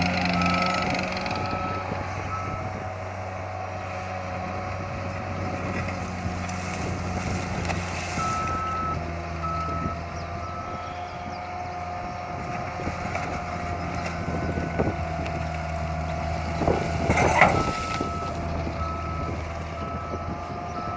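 Skid steer loader's diesel engine running steadily while its back-up alarm beeps, about two beeps a second, in three spells as the machine reverses. About 17 seconds in there is a sharp metallic clank.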